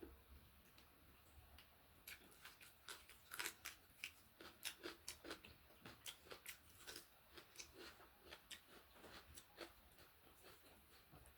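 Close-up chewing of crisp food: rapid, irregular crunches that begin about two seconds in and keep going.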